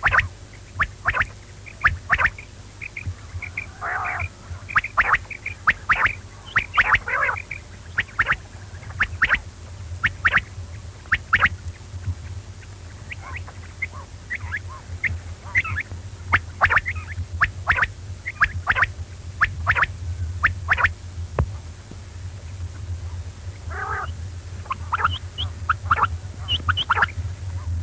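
Quail calling: a long series of short, sharp calls at irregular intervals, some in quick clusters, over a steady low hum.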